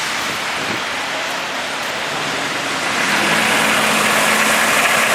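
Road traffic on a snowy city street. A vehicle draws near and gets louder about three seconds in, with a steady engine hum under the road noise.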